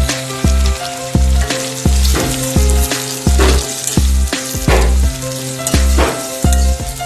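Food sizzling as it fries in a pan, with a few stirring scrapes, under background music with a steady beat.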